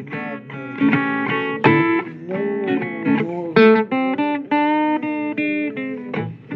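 Guitar playing a blues instrumental passage of picked notes and strummed chords, some notes bending in pitch.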